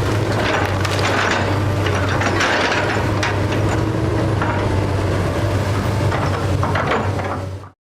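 Heavy demolition machine's engine running steadily while a wood-framed house is torn down, with wood cracking and splintering and debris crunching. The sound cuts off suddenly near the end.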